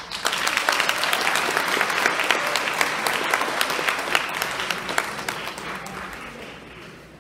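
Audience applauding, dense at first, then thinning out and dying away over the last couple of seconds.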